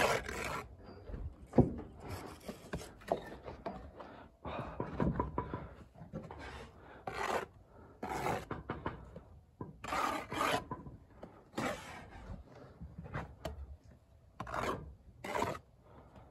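Steel brick jointer scraping and rubbing along fresh mortar joints in a brick wall, in a run of short, irregular scraping strokes. A single sharp knock comes about a second and a half in.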